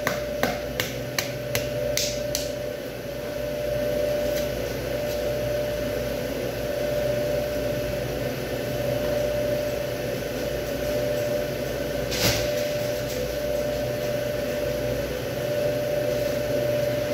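A butcher's knife chopping into beef on a plastic cutting board: about six sharp knocks in the first two seconds, and one more about twelve seconds in. A steady machine hum with a constant tone runs underneath.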